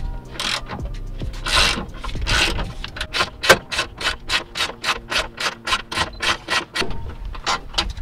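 Hand ratchet wrench backing out a seatbelt mounting bolt. First come a few longer rasping strokes, then a steady run of ratchet clicks, about four a second, that stops shortly before the end.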